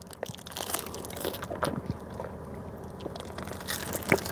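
Close mouth sounds of chewing and sipping coconut horchata through a straw from a plastic bag, with small irregular clicks and plastic handling noise. A sharper click comes about four seconds in.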